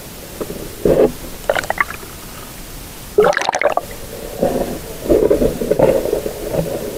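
Water heard through a submerged camera: muffled gurgling and sloshing in irregular bursts, the loudest about three seconds in.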